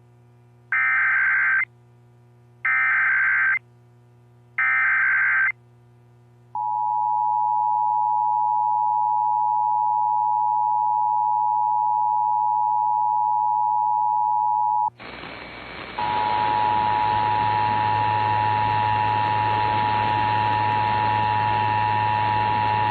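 Emergency Alert System broadcast: three short bursts of screeching SAME digital header data, then the steady two-tone EAS attention signal. About two-thirds through, the tone cuts to a hissy, humming feed, and the two-tone attention signal starts again a second later.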